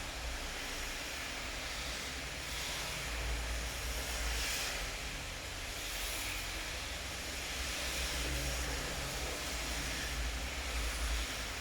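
Steady rain falling, an even hiss, over a low rumble that swells and fades every few seconds.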